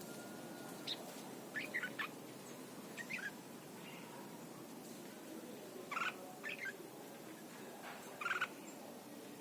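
Red-whiskered bulbul singing short, warbled phrases, about six brief bursts spaced a second or two apart, over steady background noise.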